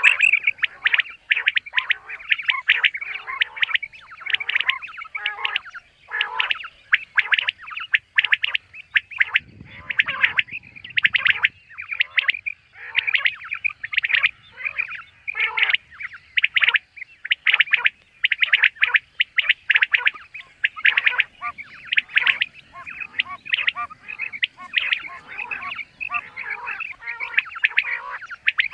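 Common quail calling, a long run of short calls repeated over and over with only brief pauses between them.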